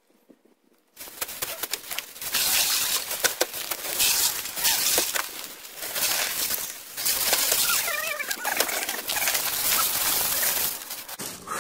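Bags of ice being torn open and emptied into bins: plastic bags crinkling and ice cubes clattering and rattling down, in surges, starting about a second in.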